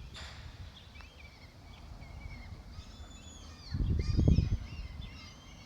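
Birds chirping and twittering, many short high calls that crowd together from about three seconds in. Around four seconds in, a gust of wind buffets the microphone, the loudest sound here.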